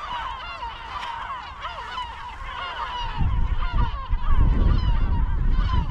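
A colony of gulls calling over their nests, many overlapping cries at once. About halfway through, a low rumble of wind on the microphone comes in and grows louder than the birds.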